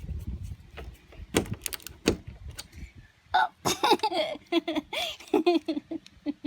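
A few sharp clicks and knocks, then a person laughing in quick broken bursts from about three seconds in.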